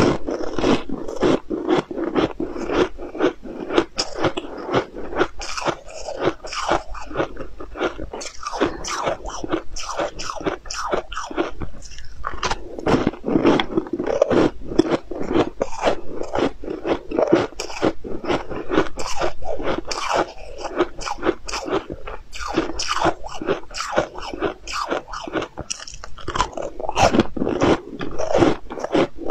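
Close-up crunching and chewing of thin, crispy cookies: a fast, continuous run of crackly crunches with no words.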